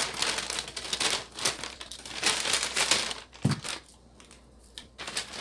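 Plastic parcel wrapping crinkling and rustling as a package is opened by hand, with one dull thump about three and a half seconds in. The rustling pauses briefly after the thump and starts again near the end.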